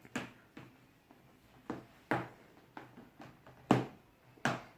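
A series of short knocks and clacks at irregular intervals, about seven in all, the loudest about three and a half seconds in: containers and utensils being handled while slime is made.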